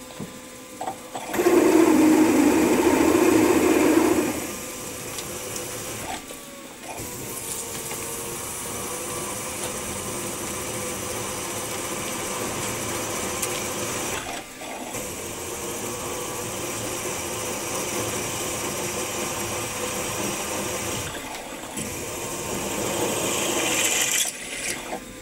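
Milling machine spindle running while a 9.5 mm twist drill bores into a metal block held in a machine vise; a steady machine hum with a held tone, louder for about three seconds near the start, cutting out briefly several times.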